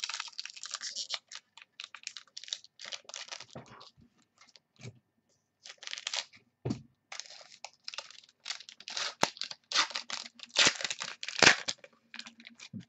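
Foil football-card pack being torn open and its wrapper crinkled, with cards handled, in irregular rustling bursts that are loudest a little before the end.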